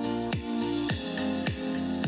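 Background music with a steady beat: a deep kick drum about twice a second under sustained notes.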